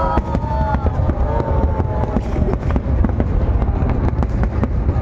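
Fireworks display: a dense run of sharp bangs and crackling from bursting aerial shells over a continuous low booming rumble.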